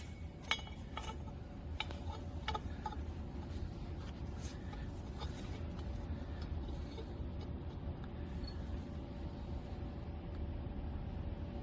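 Portable band saw with a geared-down blade running steadily, a low hum with a faint steady whine, while it cuts slowly; a few light clicks in the first few seconds.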